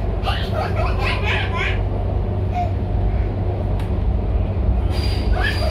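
Steady low rumble of an MTR C-train running, heard inside the carriage. Children laugh and chatter over it in the first couple of seconds and again near the end.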